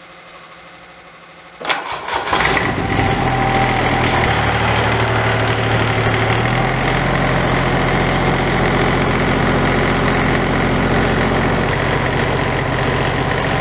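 Kubota D722 three-cylinder diesel engine starting about a second and a half in: a brief crank, then it catches and runs steadily at idle.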